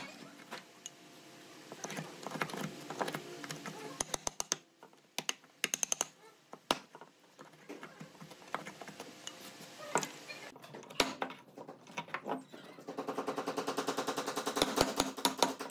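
Wooden mallet striking the handle of a wood chisel, sharp irregular knocks as the chisel cuts a mortise into a hardwood slab. Near the end the blows come as a fast, even run of taps.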